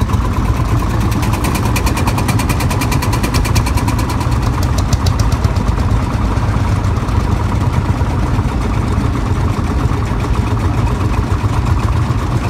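Vintage tractor engine running as the tractor drives slowly past, a fast even chugging beat that is plainest in the first few seconds.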